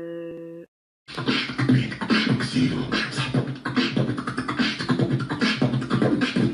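A held steady tone cuts off about half a second in; after a short gap, a dense rhythmic percussive beat takes over.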